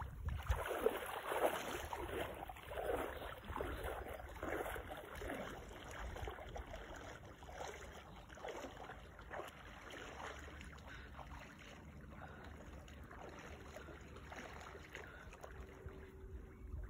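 Legs wading through shallow lake water, splashing with each step, the splashes growing fainter about halfway through as the wader moves out and starts swimming. A low wind rumble on the microphone runs underneath.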